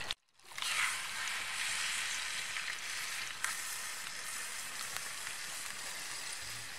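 Steak frying in hot butter in a pan, a steady sizzle that begins just after a momentary cut-out at the start.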